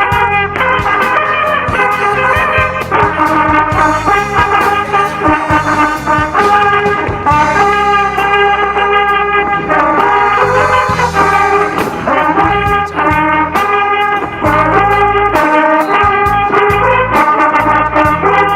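Instrumental passage of a song: brass instruments carry the melody over bass, guitar and a steady drum beat, with no singing.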